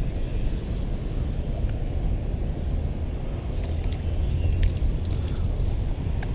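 Steady low outdoor rumble, with a few faint light clicks in the second half.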